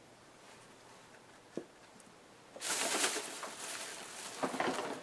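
Handling noise from paper and craft supplies: a small click about one and a half seconds in, then uneven rustling from a little past halfway, surging again near the end.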